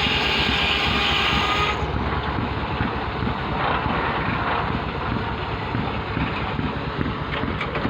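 Belt-driven line-shaft machinery running, the long flat belts flapping over their pulleys with a steady mechanical clatter and whir.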